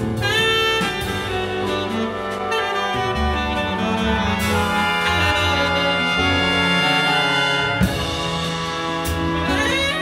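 Jazz big band playing: a tenor saxophone solos over sustained brass chords.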